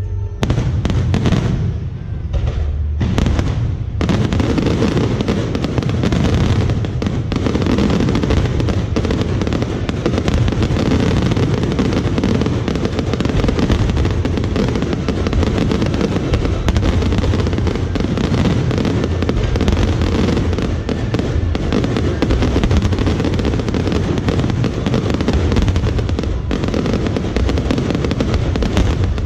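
Fireworks going off in a dense barrage. A few separate bangs come in the first few seconds, and from about four seconds in there is a continuous rumble and crackle of bursts.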